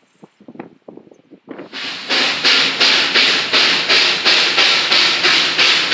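Steam locomotive exhaust beats: loud, hissy chuffs at an even pace of about three a second, starting about a second and a half in, from an engine working steadily under steam.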